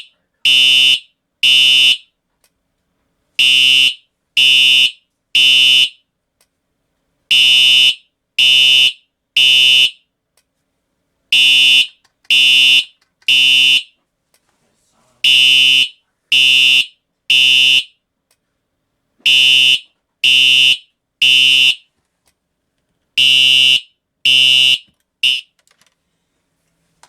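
Simplex TrueAlert horn strobe sounding a buzzy horn tone in the temporal-3 pattern: three short blasts, a pause, repeating about every four seconds. This is the standard fire evacuation signal. Seven groups sound, and the last blast of the final group cuts off short.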